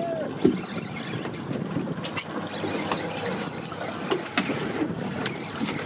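Wind on the microphone and water against a fishing boat's hull, with a spinning reel being cranked against a hooked fish: scattered light clicks and a faint high whine a little past the middle.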